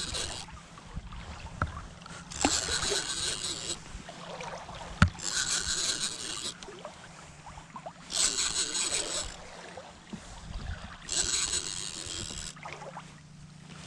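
Baitcasting fishing reel being cranked in short runs, a whirring wind-in of about a second every three seconds, as the line is retrieved. One sharp click about five seconds in.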